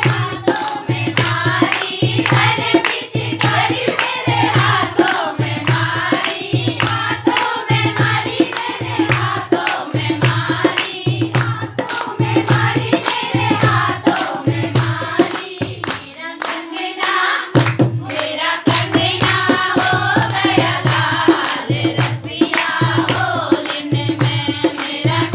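A group of voices singing a folk song, accompanied by rhythmic hand-clapping and a regular low beat. The beat drops out for a couple of seconds about two-thirds of the way through, then comes back.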